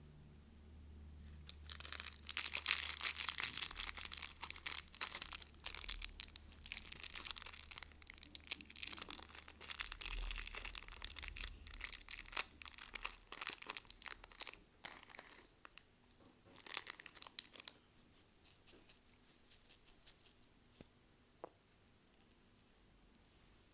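Crinkly candy wrapper being torn open and crumpled by hand in a long run of dense crackling, then in shorter bursts with pauses.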